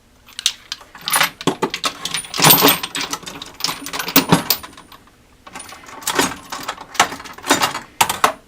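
Steel sockets and hand tools clinking and rattling together as they are handled in a toolbox drawer. Two stretches of clatter are separated by a short pause about five seconds in.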